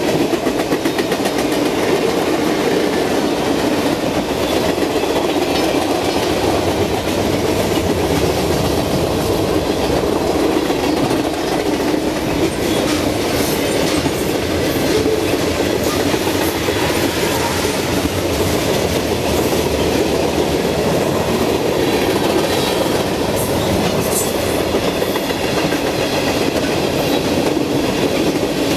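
Freight train cars, tank cars among them, rolling past close by: a steady loud rumble of steel wheels on rail, with the clacking of wheels over the rail joints.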